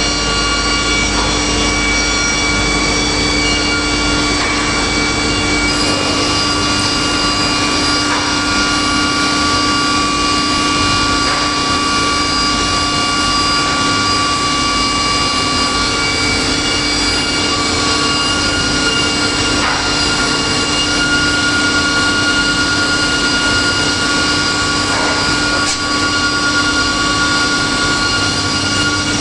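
Multi-blade rip saw running with its automatic panel feeder: a loud, continuous machine noise with a steady hum and higher tones that change every few seconds.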